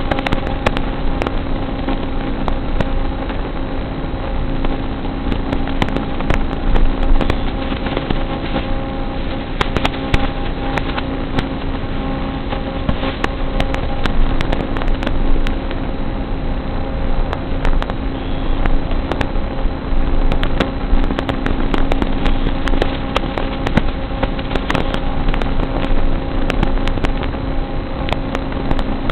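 Steady hiss with a constant electrical hum, broken by frequent crackling clicks: static, typical of audio recorded over an analog FPV video link. The hum never changes pitch.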